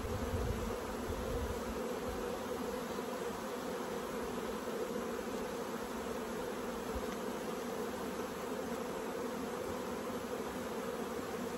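Honeybees buzzing over an opened hive box: a steady hum, with some low rumble in the first second or two.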